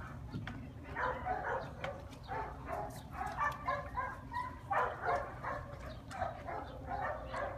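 Dogs barking, short barks coming in quick runs.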